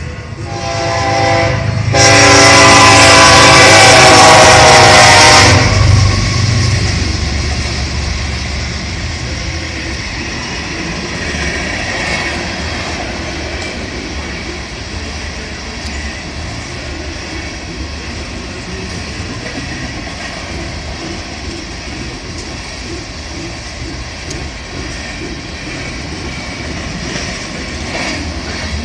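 Freight train locomotive horn sounding for a grade crossing, swelling into a very loud blast from about two to five and a half seconds in. It is followed by the steady rumble and clickety-clack of hopper cars rolling past.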